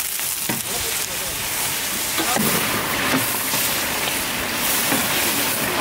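Curry with its oil, spices and freshly added water boiling and sizzling hard in a large steel pan over a wood fire, a steady rain-like hiss, while it is stirred with long metal ladles.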